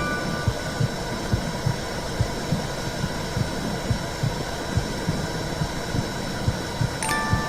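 Womb sound: a steady whooshing rush with a low, heartbeat-like thud about twice a second. Wind chime notes ring out at the start and again near the end.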